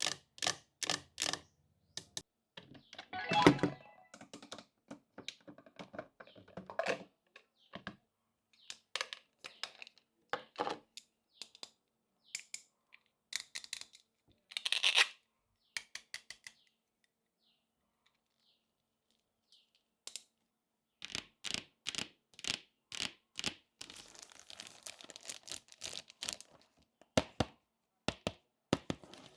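Small plastic toy kitchen pieces clicking and tapping as they are handled and set down, in quick runs of taps, with a few short rustles of packaging. There is a pause of about three seconds around the middle.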